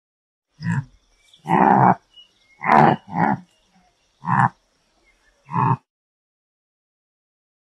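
Antelope calling: six short calls over about five seconds, the second one the longest and two coming close together in the middle. A faint steady high tone sounds behind the calls.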